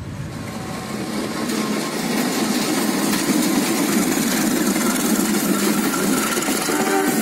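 Diesel-electric locomotive engine running as it pulls a passenger train slowly past, with the train's wheels rolling on the rails. It grows louder over the first second or two, then holds steady.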